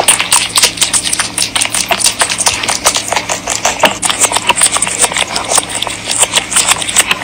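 Rabbit chewing food close to the microphone: rapid, irregular crunching clicks.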